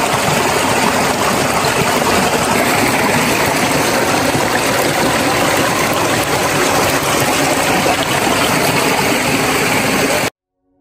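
Fast, shallow stream water rushing and churning close up as hands scrub a goat's head in the current. The loud, steady rush cuts off suddenly just before the end.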